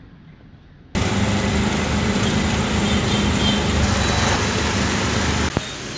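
Train running at speed, heard from on board: a loud, steady rumble and rush of wheels and air that starts abruptly about a second in and drops away sharply near the end.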